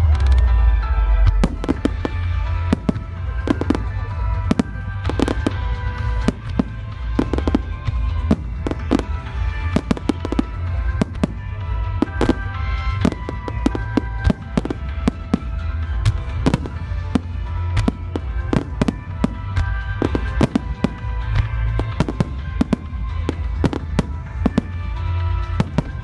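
Aerial fireworks shells bursting in a steady barrage, sharp bangs more than one a second over a continuous low rumble. Music plays alongside the bursts.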